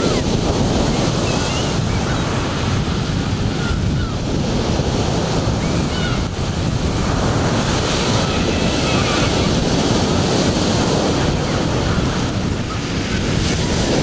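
Ocean surf breaking on a beach: a continuous rush of churning, foaming water, with wind buffeting the microphone.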